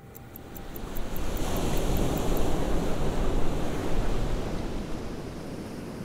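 Sea surf washing onto a beach: a wave rushes in, swelling about a second in and easing off near the end. A fast high ticking, about five ticks a second, fades out in the first two seconds.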